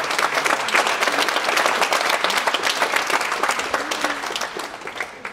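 Audience applauding, swelling up at once and fading away toward the end, with a few voices in the crowd.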